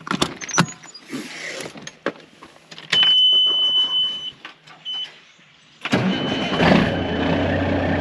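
Door latch clicks and knocks as the semi truck's cab is entered, then a steady high dash warning buzzer for about a second and a half and a short beep. About six seconds in the truck's diesel engine starts and settles into a steady idle, run to build up air pressure for the brakes.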